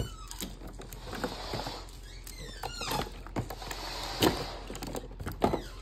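Handling noise: scattered light clicks and knocks with crinkling, and a few short high squeaks that fall in pitch about two to three seconds in.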